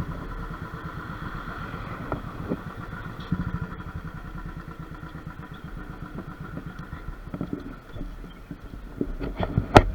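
Motorcycle engine idling with an even, rapid thumping that fades out after about halfway. A sharp knock near the end is the loudest sound.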